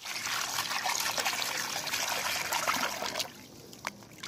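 A stream of running water pouring and splashing into a steel bowl of raw chicken pieces as they are rubbed clean by hand. The pouring stops about three seconds in, leaving only a few faint clicks.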